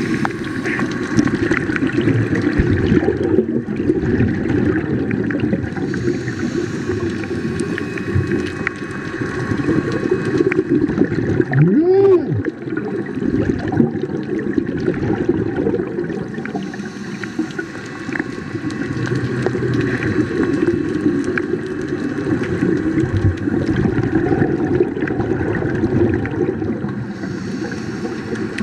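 Muffled underwater bubbling and gurgling from a scuba diver's regulator and exhaled air bubbles. A brief tone rises and falls about twelve seconds in.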